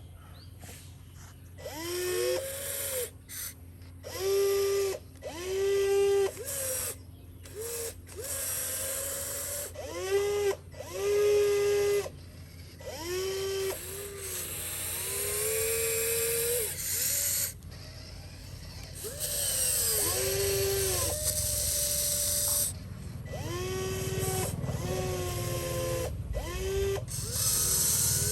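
Small electric motor whirring in short repeated bursts, spinning up quickly in pitch at the start of each run and then holding steady, with a low steady hum underneath.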